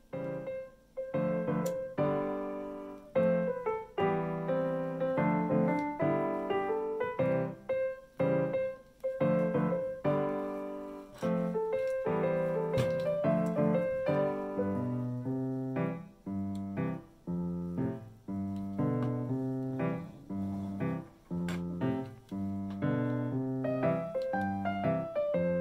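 Background piano music: a continuous run of struck notes over a moving bass line.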